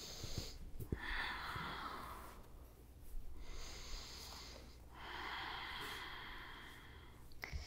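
Slow, soft human breathing: three long breaths of a second or two each, with a few faint ticks about half a second in.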